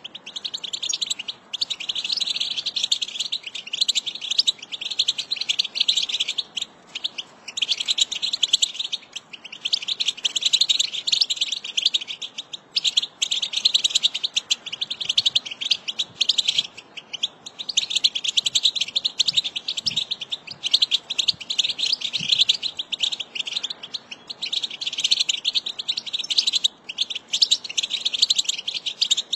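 American goldfinch song: long runs of rapid, high twittering and warbling notes, in phrases of a few seconds each broken by short pauses.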